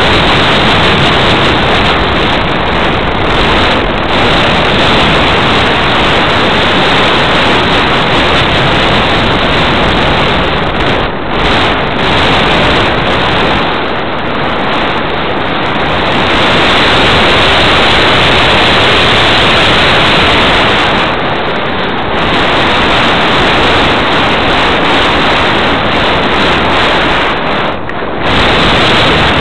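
Heavy wind rushing over the microphone of a small camera towed on a line behind an RC Cessna 182 model in flight, a loud steady rush that eases briefly a few times.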